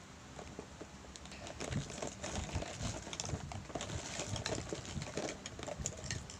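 Wrapped lollipops and candies being mixed together by hand: irregular crinkling of plastic wrappers with light clicks, busiest from about a second and a half in.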